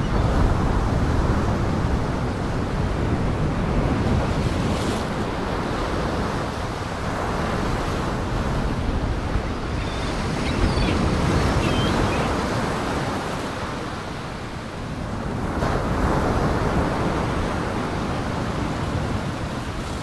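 Rough surf and wind: a continuous wash of breaking waves that swells louder and eases every few seconds.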